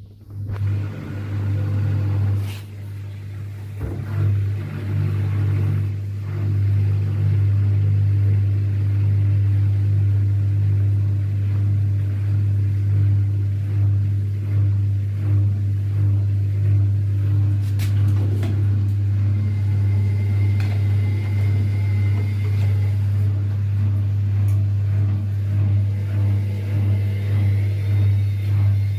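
Zanussi ZWSE680V washing machine in the final spin of a cotton programme, its shock absorbers newly repaired. The drum speeds up over the first few seconds, then spins with a steady low hum.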